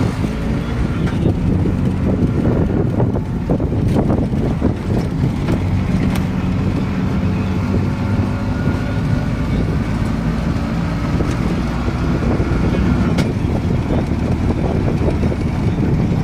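Steady engine drone: a low hum with a fainter higher whine over it, and a few light clicks.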